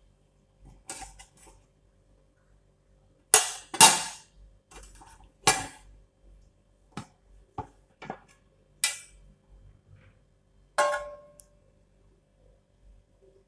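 A metal spoon and an aluminium pot lid knocking and clattering as the lid is handled and lifted off a large aluminium cooking pot: about ten sharp metallic clanks. The loudest are two about three and a half seconds in, and one near the end rings on briefly.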